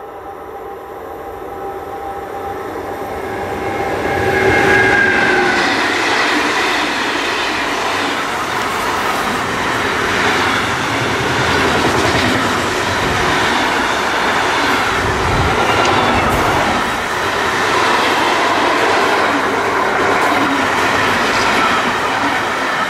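Electric locomotive hauling a container freight train, approaching and passing close by at speed. Its whine grows over the first few seconds and peaks about five seconds in, then the wagons rumble past steadily and loudly.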